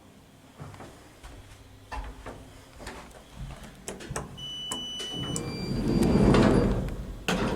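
Lift car doors sliding shut: scattered clicks and a few brief steady electronic tones, then a swelling rush of the moving door panels ending in knocks as they meet near the end.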